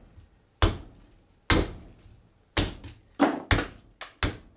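Hatchet chopping into green black walnut, hewing a ladle blank: six sharp chops at an uneven pace, about one or two a second, two of them close together near the end. The fresh wood is still green and rubbery under the blade.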